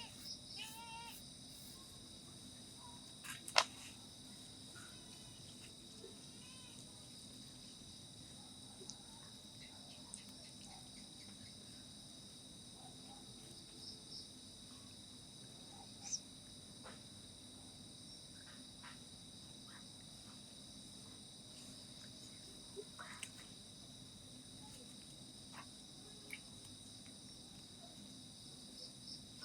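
Steady, faint high-pitched chirring of crickets, with a few scattered sharp clicks and knocks, the loudest about three and a half seconds in.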